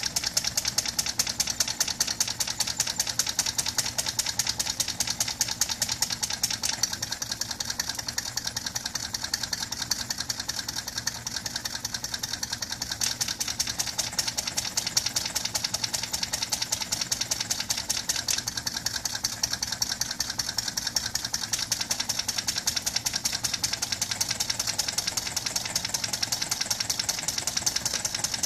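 Homemade soda-can gamma Stirling engine running on a tea candle, its flywheel turning with a fast, steady ticking.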